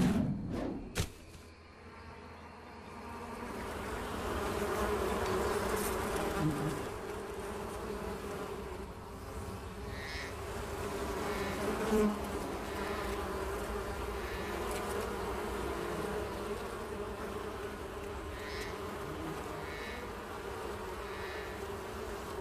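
Buzzing like a swarm of insects, swelling up over the first few seconds and then holding steady, after a few sharp knocks in the first second.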